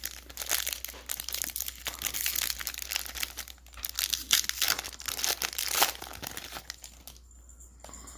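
A hockey card pack's wrapper being torn open and crinkled by hand: dense, irregular crackling that dies down about seven seconds in.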